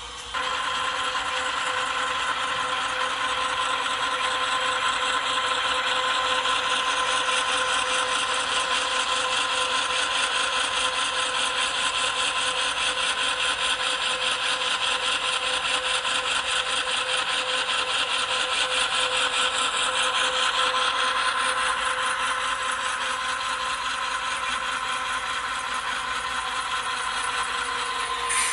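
Sound decoders (ESU LokSound v5) in HO-scale GE AC4400CW model locomotives playing diesel prime-mover sound through their small onboard speakers. The engine sound runs steadily with a fast, even pulse and a constant hum. It starts abruptly just after the beginning, and there is a short click at the very end.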